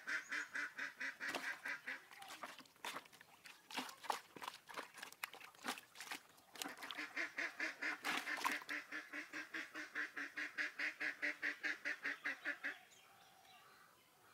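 An animal calling over and over in a steady, even rhythm of about four or five calls a second, broken for a few seconds by a run of sharp knocks. The calling stops about a second and a half before the end.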